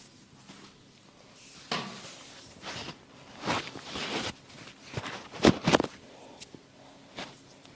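Hands massaging a person's head and back: irregular rubbing strokes on skin and hair with a few sharp contact sounds, the loudest a quick pair a little past halfway.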